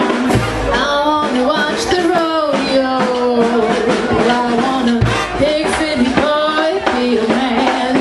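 Live marching band playing loudly: horns holding and sliding between notes over drum hits.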